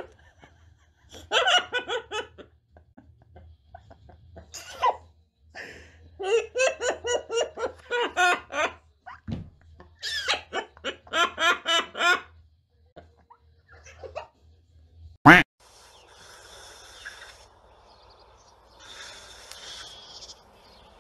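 Laughter in several bursts of quick, evenly pulsed 'ha-ha-ha' sounds, the longest lasting about two seconds. About fifteen seconds in, a short sharp swish cuts it off, followed by faint steady hiss.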